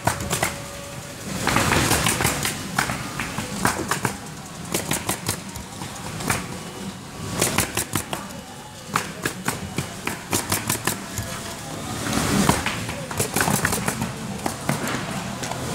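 Pneumatic coil roofing nailer driving nails into asphalt shingles in quick bursts of rapid shots, with music in the background.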